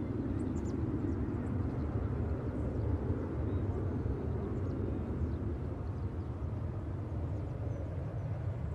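Airbus A320 jet engines rumbling steadily as the airliner climbs away after takeoff, the sound slowly easing as it recedes.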